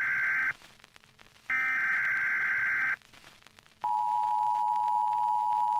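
Emergency Alert System tones. Two bursts of buzzy, warbling SAME data tones, each about a second and a half long with a short gap between them, are followed about four seconds in by the steady two-tone EAS attention signal.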